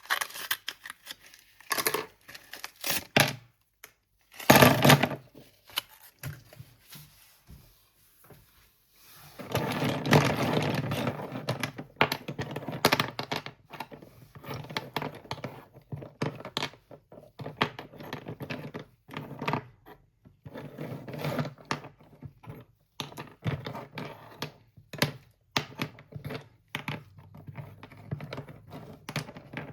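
Slate pencils being crunched and snapped, close up: a run of crisp cracks and gritty crunches in irregular bursts. There is a louder burst about four seconds in and a stretch of dense, continuous crunching about a third of the way through.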